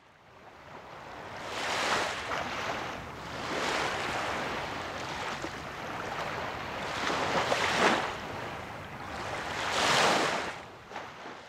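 Sea waves washing in, fading in at the start, then swelling and falling away in about four big surges, with a low rumble of wind underneath.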